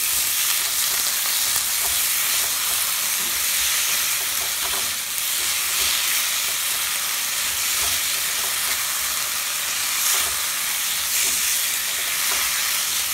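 Tomato wedges and ketchup sizzling in hot oil in a non-stick pan, stirred with a silicone spatula: a steady frying hiss with soft strokes of the spatula.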